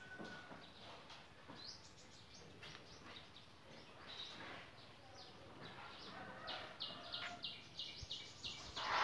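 Small birds chirping, faint: scattered short high chirps at first, then a quick run of several chirps a second in the last few seconds.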